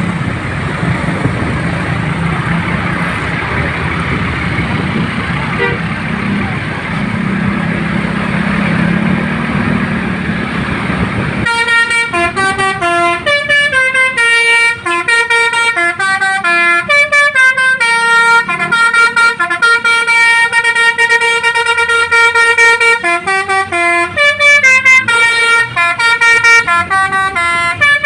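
Steady vehicle noise, then about a third of the way in a Basuri 'telolet' multi-tone bus horn starts playing a tune, a quick run of stepped horn notes that keeps changing pitch and goes on to the end.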